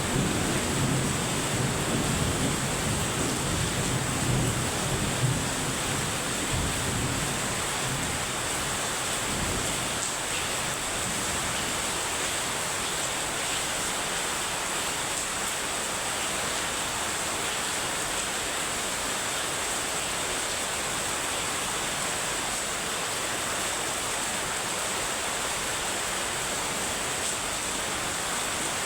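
Heavy rain falling steadily, a continuous hiss, with a low rumble of thunder dying away over the first several seconds.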